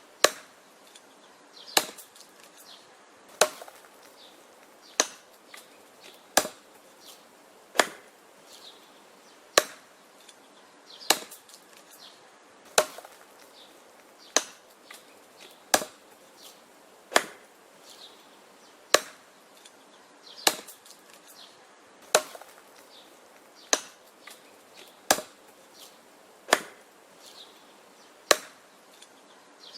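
An axe chopping wood: a sharp strike about every one and a half seconds, each followed by a brief ring, with fainter small knocks in between.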